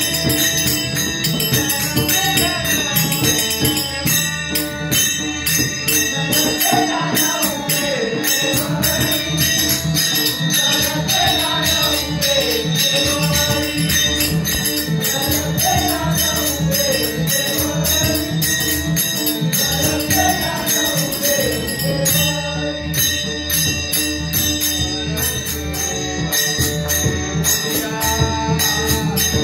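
Marathi devotional bhajan: men's voices singing a repeating melodic phrase over many pairs of small brass hand cymbals (taal) clashing in a steady, fast rhythm, with a barrel drum.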